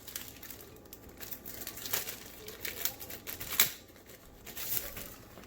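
Paper leaflets and packaging being handled and shuffled: irregular rustling and crinkling with a few sharp clicks, the loudest about three and a half seconds in.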